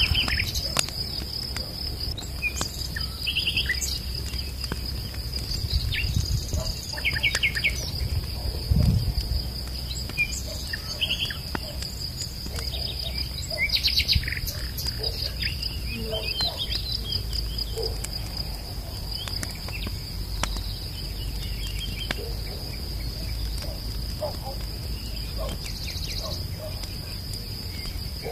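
A steady, high insect trill, like crickets, runs throughout, with scattered short bird chirps and a low background rumble. There is one low thud about nine seconds in.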